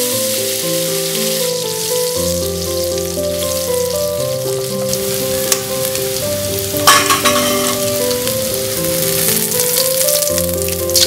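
Tomato, chili, garlic and shallot paste sizzling as it fries in hot oil in a wok, with a sharp louder crackle about seven seconds in. Gentle piano music plays over it.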